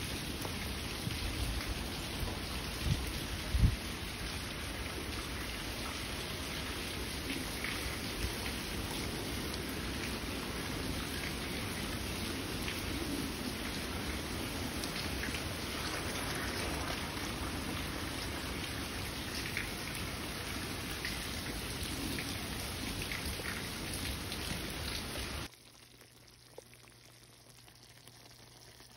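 Thick fruit chutney bubbling and sputtering in a pan on the stove, a steady crackling hiss, with two sharp thumps about three seconds in. The crackling cuts off abruptly about 25 seconds in, leaving only a faint low hum.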